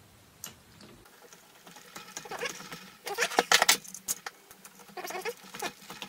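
Hand screwdriver turning screws into the drill's metal gearbox housing during reassembly: the screws squeak as they bind in their holes, and the blade scrapes and clicks in the screw heads. The scraping clusters between three and four seconds in, with short squeaks around five seconds.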